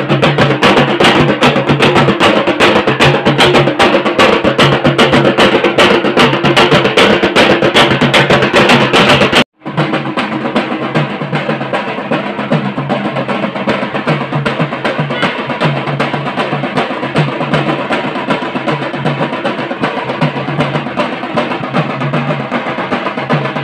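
Several large dhol drums beaten with sticks in a fast, dense rhythm. About nine and a half seconds in, the sound breaks off for an instant and comes back quieter and duller, the drumming still going on.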